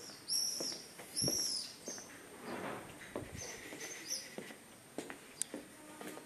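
A small bird chirping: two loud, arched, high chirps in the first second and a half, then fainter chirps a couple of seconds later. Footsteps on stone paving go on underneath at a walking pace.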